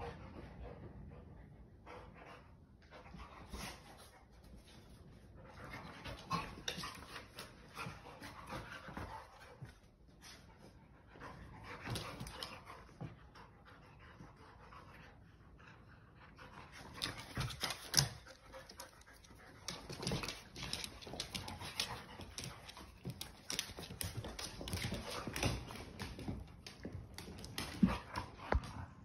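Dogs panting hard during rough play between an adult dog and a young puppy, with scuffling and a few sharp knocks, the loudest about two-thirds of the way in and another near the end.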